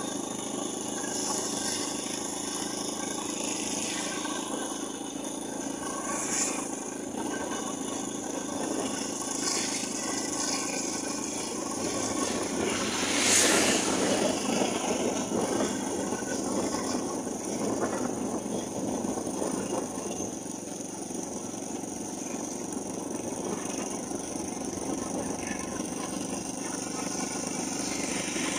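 Steady engine drone with road and wind noise from a vehicle riding along a road. About halfway through, a motorcycle passes close by, the loudest moment.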